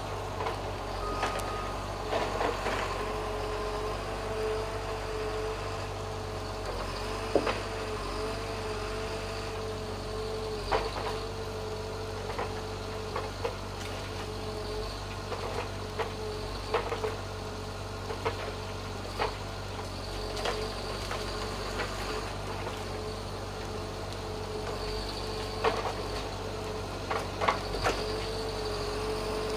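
John Deere 810E forwarder's diesel engine running steadily, with a steady whine while its crane loads logs. Sharp knocks of logs striking each other and the grapple come every second or two.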